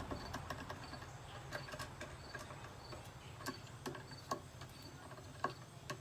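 Scattered light clicks and taps of hands and tools working on a commercial vacuum cleaner's parts during disassembly, over a steady low hum and a faint high chirp that repeats about twice a second.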